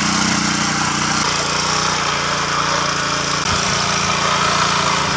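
Small engine of a walk-behind rotary tiller running steadily while it loosens soil.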